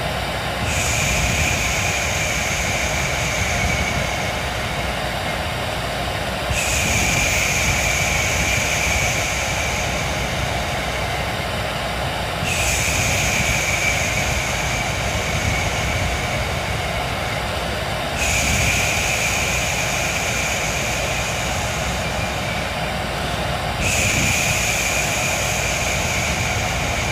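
Hair dryer running steadily, with a long "shhh" shushing sound laid over it five times, about every six seconds, each one starting sharply and fading over a few seconds. A homemade white-noise mix for settling a newborn to sleep.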